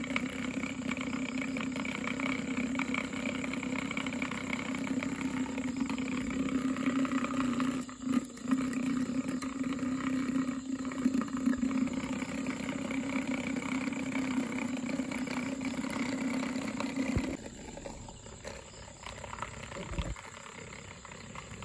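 Small battery-powered DC motor spinning a propeller cut from a plastic bottle, a steady whirring hum. The hum falters briefly around eight seconds in, with a few knocks, and drops much quieter about seventeen seconds in.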